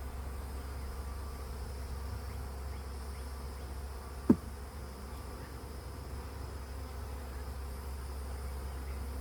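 Honeybees buzzing steadily around an open hive, with one brief sharp knock about four seconds in.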